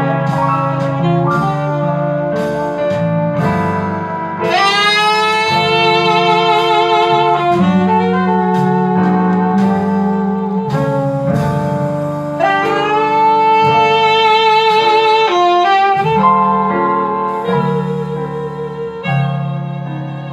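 Recorded instrumental music played back through an Altec 32A right-angle horn loudspeaker: a melody of long, wavering held notes that slide into pitch, over a steady bass line.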